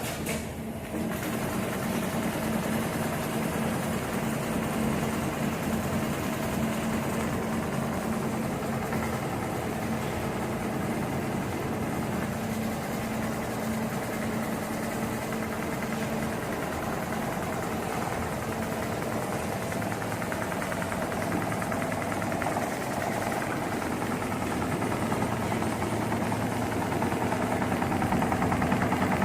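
HEMS 250 CNC programmable pattern sewing machine running steadily, stitching at a rapid, even rate.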